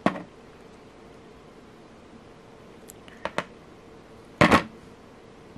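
Small metal clicks of chain nose pliers and a jump ring opener on a jewelry jump ring as it is opened wider: one sharp click at the start, a few faint ticks past the middle, then one louder clack about four and a half seconds in.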